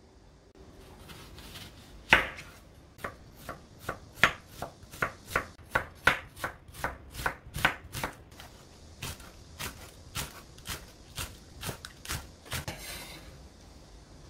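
Chef's knife slicing onion and green onion on a wooden cutting board: a steady run of sharp knife strikes, two to three a second. The strikes start about two seconds in and stop shortly before the end.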